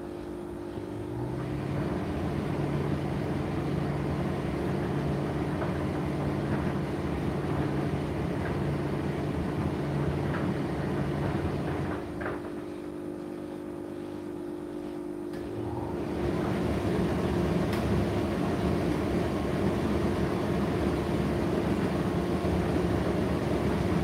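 Indesit IDC8T3 condenser tumble dryer running, with a steady motor hum and the noise of the turning drum. About halfway through, the drum drive stops for a few seconds, then starts again and runs louder.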